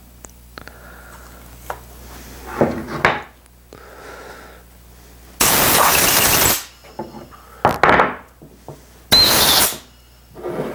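Compressed-air blow gun giving short blasts of air to blow water off a freshly stripped and washed wooden chair arm: four hissing blasts, the longest about a second, with the loudest about halfway through.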